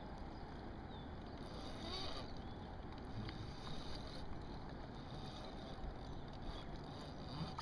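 Steady outdoor noise of wind and moving river water, with no distinct events standing out.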